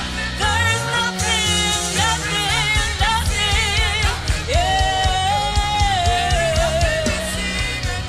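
Live gospel praise-and-worship music: a woman sings the lead into a microphone over a band with bass and drums. She holds one long note about halfway through.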